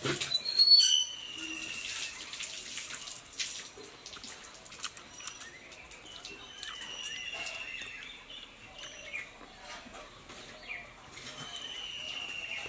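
Wet mouth sounds of people eating juicy orange segments without hands: many short smacks and slurps. A bird calls in the background, a short falling whistle heard three times, the loudest just under a second in.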